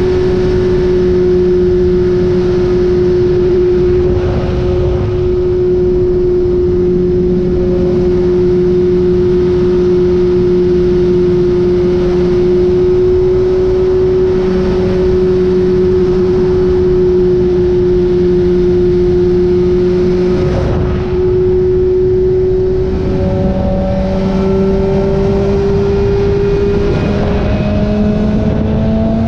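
BMW S1000RR inline-four engine running at steady highway speed, with wind and road noise. About 23 s in the engine note steps up and keeps rising toward the end as the bike accelerates.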